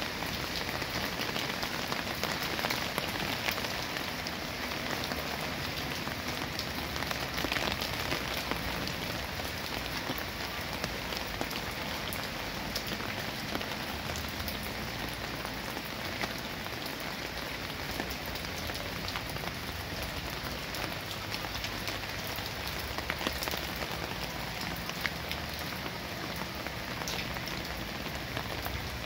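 Steady rain: an even hiss made up of countless small drop hits.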